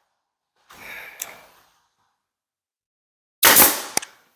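An 18-gauge nail gun firing brads into a cabinet face frame: a softer shot with a click about a second in, then a loud sharp shot near the end.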